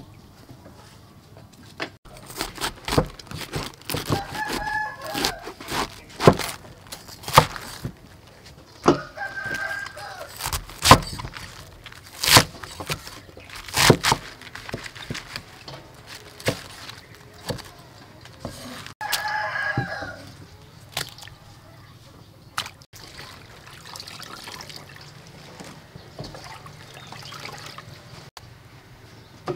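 A cleaver chopping cabbage on a wooden chopping block, sharp knocks at uneven intervals. A rooster crows three times among the chops.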